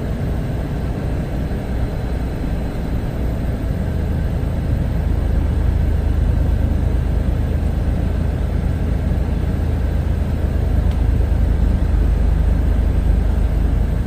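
Semi-truck engine heard from inside the cab, a steady low rumble that grows louder about four seconds in.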